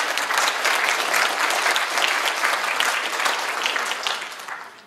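Audience applauding: many hands clapping at once in a dense patter that dies away near the end.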